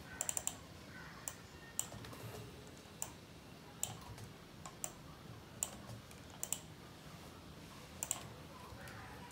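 Scattered computer keyboard keystrokes and mouse clicks: a quick run of four just after the start, then single clicks about once a second over faint room tone.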